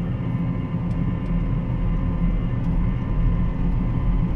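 Combine harvester running steadily as it travels down the road at speed, a steady low engine drone.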